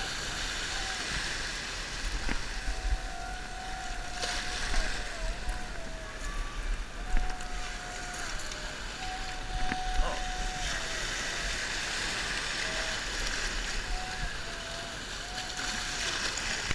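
Small waves washing in over rocks at the water's edge, with swells of surf about four seconds in and again in the second half, and wind rumbling on the microphone. A thin whistle-like tone at a fixed pitch comes and goes in short stretches.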